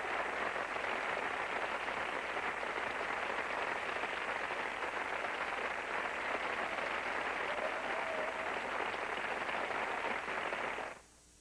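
Studio audience applauding steadily, then cutting off sharply near the end.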